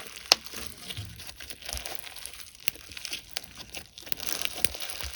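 Slime being squished and played with by hand: a crinkly, crackling noise with a few sharp clicking pops, the loudest about a third of a second in.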